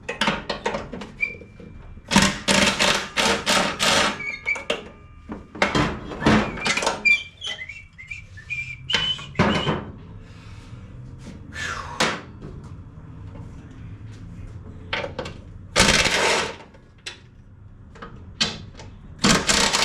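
Metal clanks and knocks from tools and parts while the blade spindles are taken off a riding mower's cutting deck. A few strikes ring briefly, and several louder noisy bursts of up to a second stand out, the loudest near the end.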